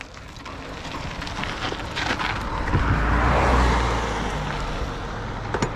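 Mountain bike rolling along a dirt trail: tyre noise and wind rushing over the GoPro's microphone, building to its loudest about three and a half seconds in, with a couple of sharp knocks near the end.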